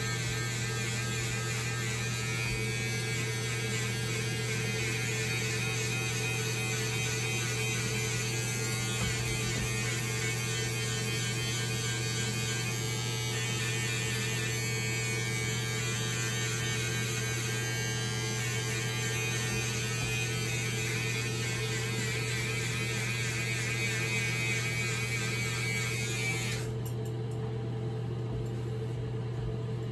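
Electric hair clippers running with a steady buzz while cutting short hair.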